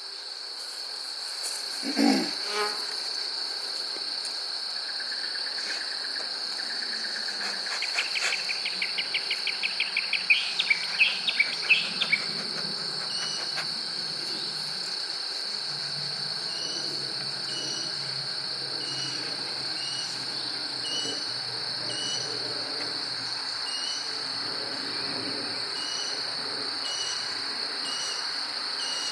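Insect chorus with a steady high-pitched trill. A bird sings a quick run of chirps about a third of the way in, and from about halfway short chirps repeat roughly once a second.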